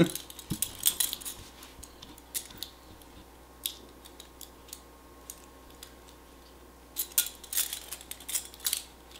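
Metal handcuffs clicking and clinking as they are unlocked with a key: scattered sharp metallic clicks and rattles, busiest near the start and again in the last two seconds.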